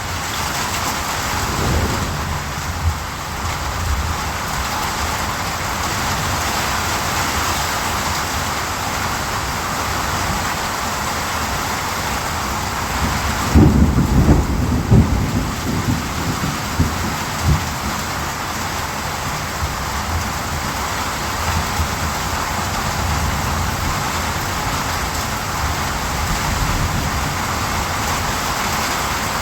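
Steady, heavy rain falling, with a low roll of thunder rumbling for a few seconds about halfway through.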